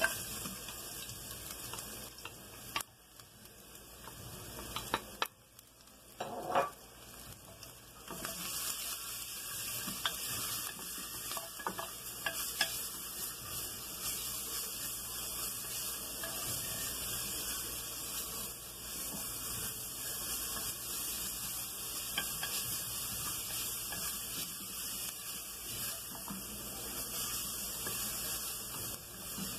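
Minced garlic frying in hot oil in a pressure cooker pot, stirred with a wooden spoon that knocks and scrapes against the pot. The sizzling is faint at first, with a few sharp knocks, and becomes a steady hiss about eight seconds in.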